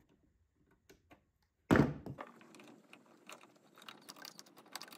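Small metallic clicks and handling noises of MIG welding wire being cut and threaded into the inlet guide of a welder's wire-feed drive, with one louder knock a little under two seconds in.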